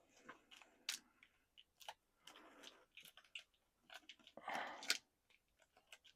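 Faint, scattered clicks and short plastic rustles of a PVC action figure being handled and its joints worked.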